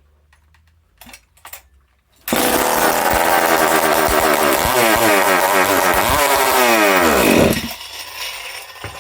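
Husqvarna 268XP two-stroke chainsaw, ported and running without its muffler, catching after two brief rasps of the starter and running loudly for about five seconds. Its revs rise and fall unevenly before it dies. It is running only on fuel poured down the carburettor throat, and the owner wonders whether the carb is not pumping fuel.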